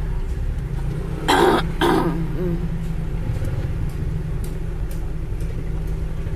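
Car engine and road rumble heard inside the cabin at a slow crawl, steady and low. Two short coughs come about a second and a half in.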